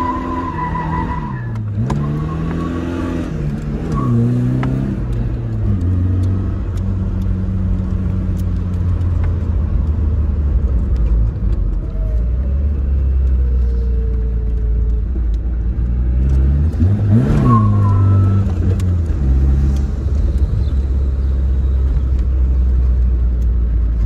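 Tofaş Doğan SLX's four-cylinder engine heard from inside the cabin while driving, revs rising and dropping several times early on the drive and steadying to a low drone, with one sharp rev up and back down about two-thirds of the way through.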